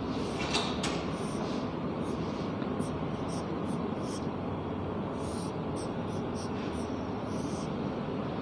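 Marker pen stroking on a whiteboard in many short strokes as a diagram is drawn, over a steady background hiss.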